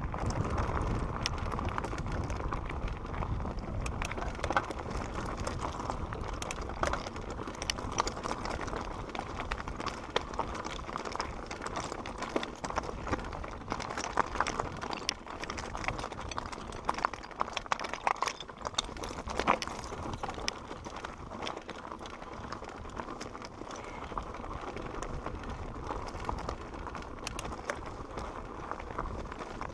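Santa Cruz Bronson mountain bike rolling fast down a rocky dirt singletrack: tyres crunching over dirt and stones, with a constant irregular clatter of knocks and rattles from the bike. A low rumble of wind on the microphone is heavier in the first half.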